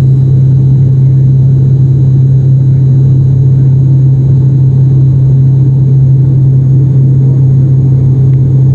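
Turboprop airliner's engine and six-blade propeller droning steadily in flight, heard from inside the cabin: a loud, even low hum over a rumble.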